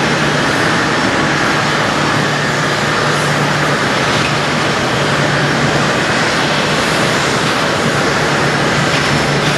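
Boeing 777-200 jet engines running, a loud steady rush of noise with a low hum underneath that swells and fades every few seconds.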